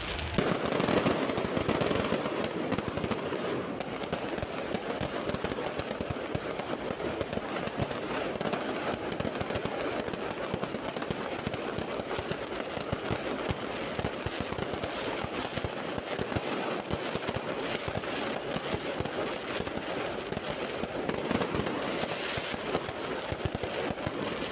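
Fireworks going off in a dense, continuous crackle of many rapid small bangs, with a few louder pops standing out, the loudest just after the start.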